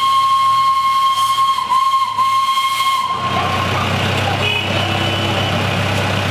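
Steam whistle of a narrow-gauge 0-4-0 saddle-tank steam locomotive, one long steady blast that wavers twice and cuts off about three seconds in. Then steam hissing as the locomotive gets under way.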